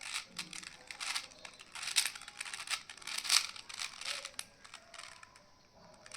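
Plastic 4x4 Rubik's cube being turned by hand: irregular clicks and scrapes as its layers rotate, quieter near the end.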